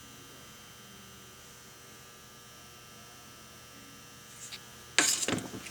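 Faint steady electrical mains hum. About five seconds in, a single sudden loud knock or clatter cuts in and dies away within about half a second.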